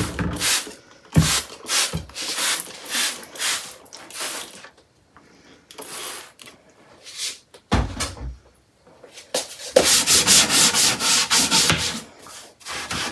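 Hand scrubbing on the bottom of a laminated chipboard kitchen drawer: a rhythmic back-and-forth rasp for the first few seconds, then a faster, denser run of strokes from about ten seconds in. There is a single thump just before eight seconds.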